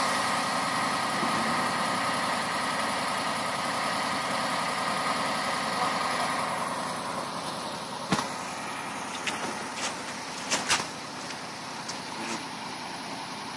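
KAMAZ truck's diesel engine running steadily while the rig sits bogged in mud with its tanker trailers. The engine sound drops off about six seconds in, and several sharp knocks follow.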